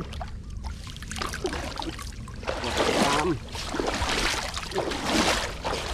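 Shallow muddy water splashing and sloshing as a person wades through it and moves a fishing net in it, picking up from about two and a half seconds in.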